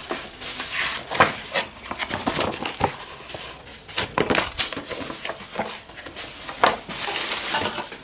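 Paper rustling and handling as a printed instruction booklet is opened and its pages turned, with scattered sharp clicks and knocks.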